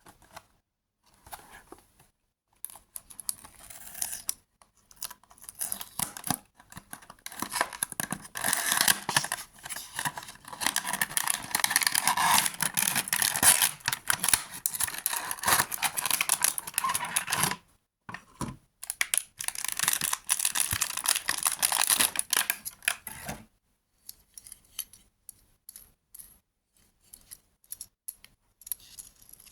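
Toy packaging being torn open and crinkled by hand: a long stretch of dense tearing and rustling with a short break, then a few light handling clicks near the end.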